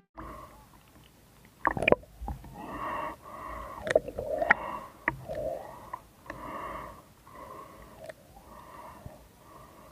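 Rasping breaths through a snorkel, repeating about once a second, heard muffled through water, with a few sharp clicks and knocks from handling the speargun, the loudest near two seconds in.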